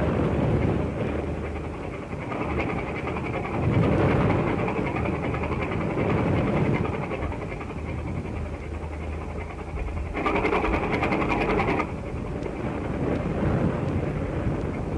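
A steady engine rumble under a dense hiss of noise, with a short burst of rapid clicking about ten seconds in.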